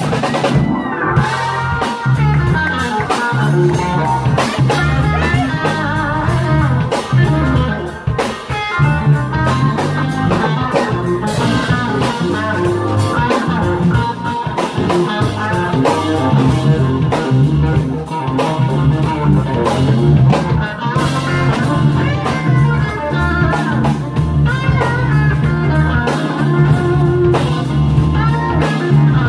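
Live blues band playing: electric guitar lead lines over keyboard, bass and drums.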